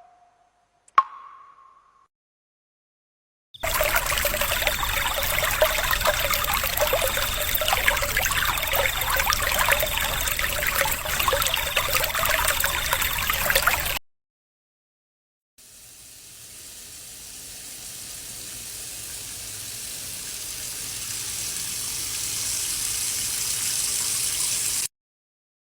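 A string of water sound effects: a single water-drop plop about a second in, then about ten seconds of loud running, splashing water that stops suddenly, and after a short silence a rushing water sound that grows steadily louder for about nine seconds before cutting off abruptly.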